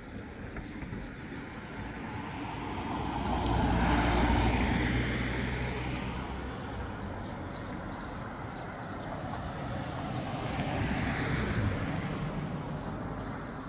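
Two vehicles passing by on the road one after the other. The first, with a low engine rumble, swells up and fades away about four seconds in; a second, lighter one passes about eleven seconds in.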